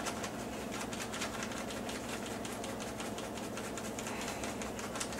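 Sugar being scooped and poured into a small plastic measuring cup: a busy run of small irregular clicks and rustles over a faint steady low hum.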